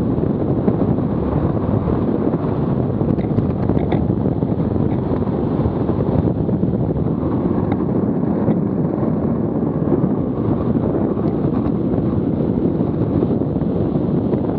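Steady rush of wind on the microphone mixed with the rolling of the hard wheels of a Buggy Rollin wheel suit on asphalt during a fast downhill run, with a few faint ticks.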